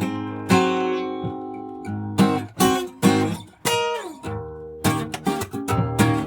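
Solo acoustic guitar playing a strummed chord intro, its strings old and due for replacing. Strong strokes come about every half second, a note slides down in pitch near the middle, and the strumming quickens in the last second or so.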